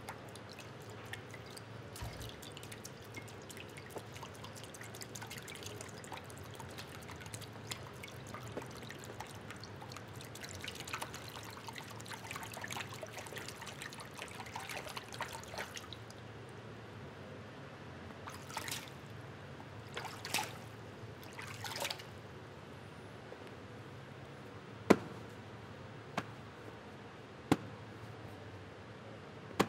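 Sparse improvised sound accompaniment: a dense patter of tiny drip-like ticks and crackles through the first half, then three short swishes, then a few sharp single clicks a second or two apart near the end.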